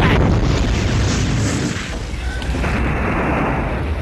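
Cartoon sound effect of a burning oil field exploding: a loud, deep rumbling boom that eases slightly about two seconds in.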